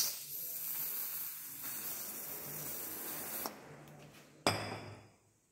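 Aerosol can of red dye penetrant spraying in a steady hiss, cutting off about three and a half seconds in. A single sharp knock follows about a second later.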